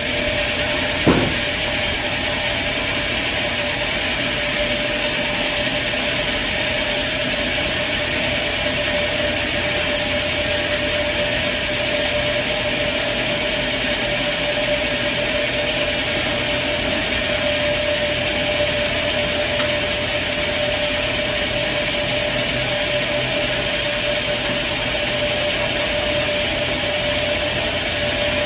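Sawmill machinery running steadily, an engine-like drone with a constant whine. There is one sharp knock about a second in.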